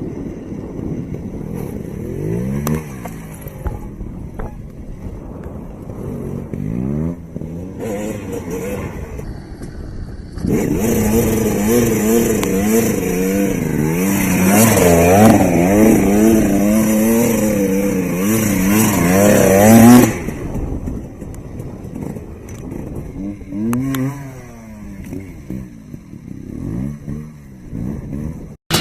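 Two-stroke motocross bike engines revving hard and dropping off through the gears as they are ridden, the pitch climbing and falling again and again. The sound changes abruptly about a third and two-thirds of the way in, where one clip gives way to the next, and the middle stretch is the loudest, its engine note wavering quickly.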